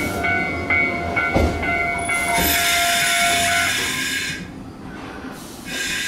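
Echizen Railway train at the station platform. A repeating electronic tone pulses about twice a second over a held tone, then a long hiss of air starts about two and a half seconds in. A second short hiss comes near the end, with one knock early in the tone sequence.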